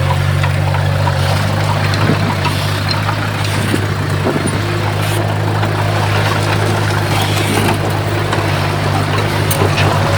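Komatsu D51PX bulldozer's diesel engine running at a steady speed, with scattered light clicks and clanks from the working machine.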